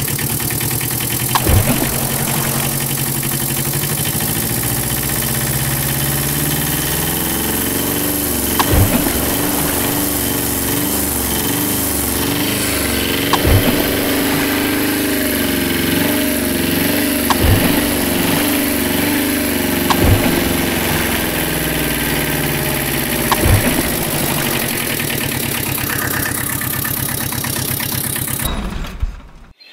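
Truck engine idling steadily, with a handful of short, sharp sweeps every few seconds; it cuts off suddenly near the end.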